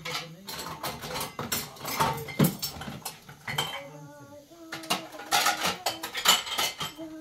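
Metal utensils, pots and dishes clattering and clinking in quick, irregular knocks as they are handled.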